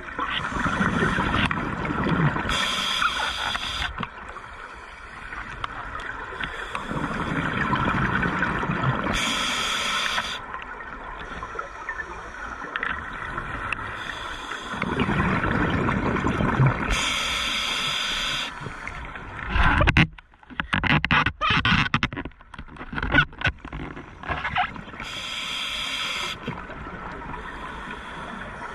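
Scuba diver breathing through a regulator underwater: a short hiss on each of four inhales, about every seven to eight seconds, with a low gurgling rush of exhaled bubbles between them. A cluster of sharp knocks and clicks comes about two-thirds of the way through.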